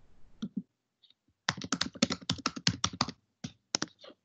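Typing on a computer keyboard: a quick run of about a dozen key presses, then a few separate keystrokes near the end.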